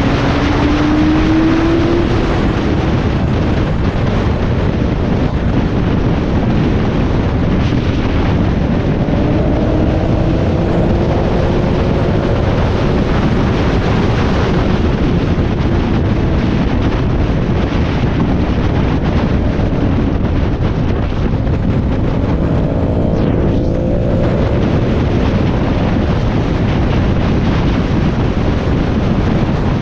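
Motorcycle riding at about 100 mph on a highway: heavy, steady wind noise on the microphone nearly buries the engine, whose pitch can faintly be heard climbing near the start and again twice later as it pulls.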